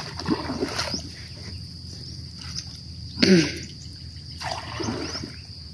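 Water dripping and trickling off a gill net as it is lifted by hand from a pond, over a steady high insect drone. A short spoken phrase cuts in about three seconds in.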